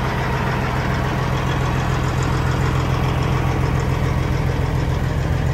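Kenworth W900 semi-truck's diesel engine idling steadily, an even low hum with no change in speed.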